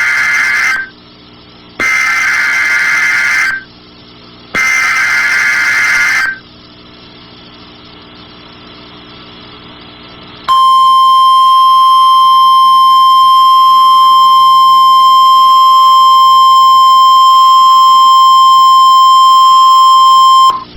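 NOAA Weather Radio Emergency Alert System signal. First come SAME digital header data bursts, a harsh warbling screech: the tail of one and then two more, each about a second and a half long. After a few seconds of faint static comes the steady 1050 Hz weather radio warning alarm tone, held for about ten seconds and then cut off. It is the tone that sets off alert receivers for a tornado watch.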